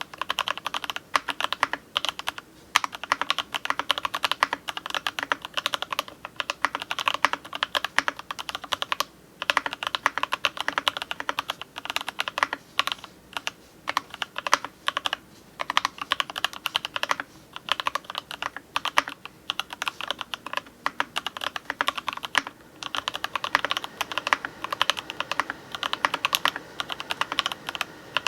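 Typing on a Keychron K6 aluminium-frame mechanical keyboard with lubed Box Cream linear switches, MT3-profile keycaps and foam dampening: fast runs of keystrokes broken by brief pauses every few seconds.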